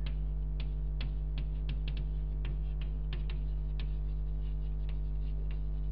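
Chalk tapping and clicking against a blackboard in short, irregular strokes as words are written, over a steady low electrical mains hum.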